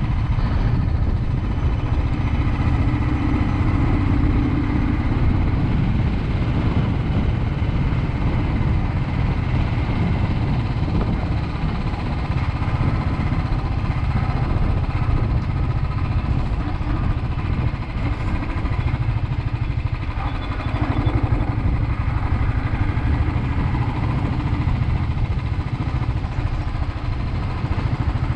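Motorcycle engine running steadily as the bike is ridden along, heard from a camera mounted on the bike.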